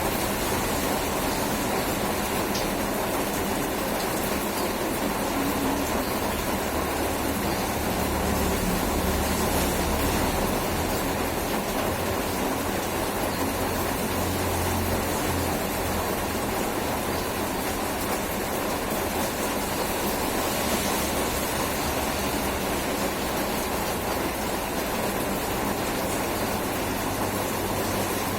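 Steady rain, an even, unbroken hiss.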